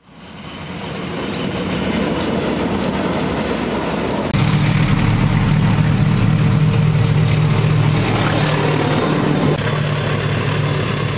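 KAI diesel-electric locomotives hauling passenger trains past, heard in edited clips. It fades in on a train rolling by with rail clatter and clicks. After a sudden cut about four seconds in, a locomotive's diesel engine runs with a steady low drone.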